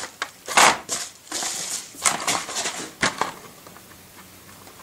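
Rustling and crackling of packaging being handled: a paper padded mailer and the cardboard-backed pack of a band saw blade. There are a few sharp bursts in the first three seconds, the loudest about half a second in, then it goes quieter.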